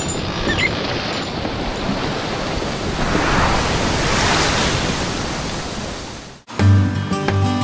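Rushing ocean surf that swells and then fades out about six seconds in. Acoustic guitar music begins near the end.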